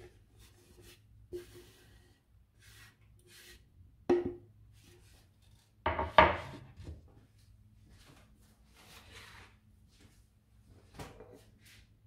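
Kitchen handling sounds: soft rustling and scraping as sliced spring onion is added to a glass dish of shredded carrot and cabbage. There is a sharp knock about four seconds in and a louder clatter around six seconds in.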